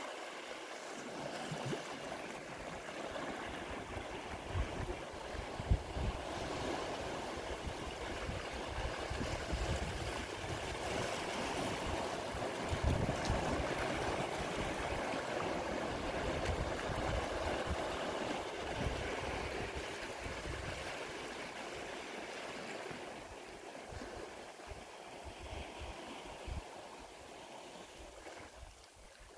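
Small sea waves washing in over flat rock ledges at the water's edge, a continuous swirl and rush of water. It swells louder in the middle and eases off toward the end.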